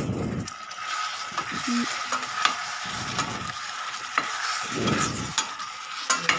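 Wooden spatula stirring mango pieces in a steel kadai, scraping and knocking against the pan with scattered sharp clicks, over a steady sizzle of frying in oil.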